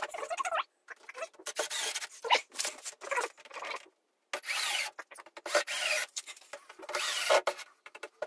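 Cordless drill-driver driving screws into a plywood panel, in a run of short bursts with brief pauses between them, the screws grinding into the wood.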